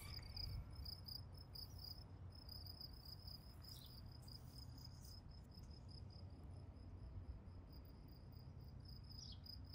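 Near silence: faint, high-pitched chirping repeating evenly several times a second, over a low steady hum.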